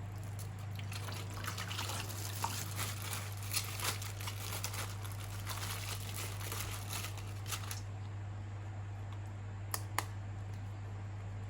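Wet, crackling handling sounds, like something liquid or slimy being worked by hand, for most of the first eight seconds. Two sharp clicks come about ten seconds in. A steady low electrical hum runs underneath.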